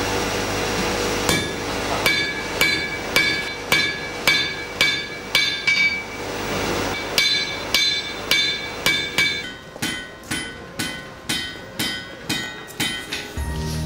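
Blacksmith's hand hammer striking red-hot iron on an anvil, about two ringing blows a second. From about nine seconds in the blows become lighter and quicker.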